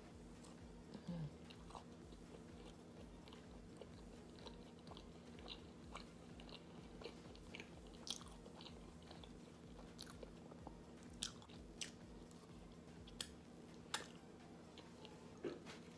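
A person chewing and biting food: faint, scattered soft crunches and mouth clicks, a few louder ones in the second half, over a steady low hum.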